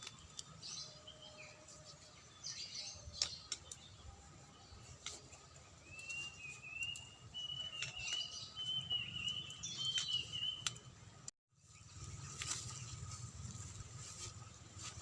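Birds chirping, with one long wavering high call in the middle, over a faint low rumble. The sound cuts out completely for a moment about eleven seconds in.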